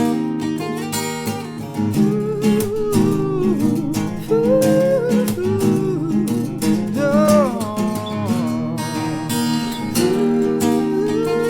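Acoustic guitar strummed in a steady rhythm. A melody line above the chords bends and wavers in pitch.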